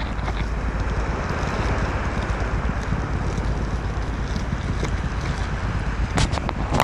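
Muffled, steady rushing and rumbling of water moving over a phone's microphone underwater. A few sharp clicks and crackles come near the end.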